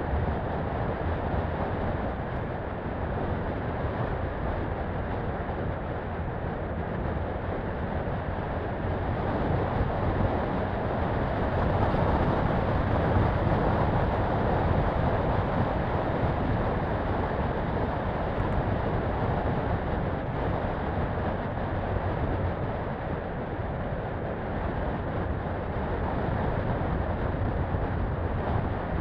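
Daihatsu Feroza 4x4 driving along a dirt road: a steady mix of engine and tyre noise, a little louder about ten to fifteen seconds in.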